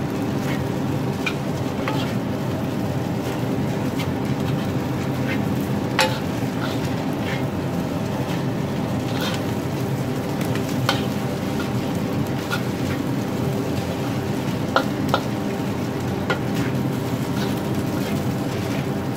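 Egg fried rice sizzling in a black wok while a metal spatula stirs, scoops and scrapes it, with scattered clicks and scrapes of metal on the wok over a steady hum.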